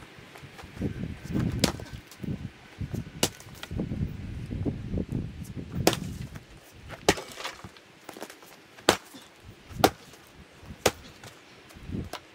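Split firewood knocking and clacking as pieces are handled and tossed, sharp single wooden knocks about once a second or so, with scuffing footsteps and rustling through wood chips in the first half.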